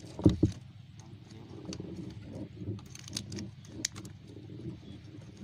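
Lake water splashing and sloshing as fish are worked free of a fishing net by hand, with two loud knocks near the start and scattered small clicks.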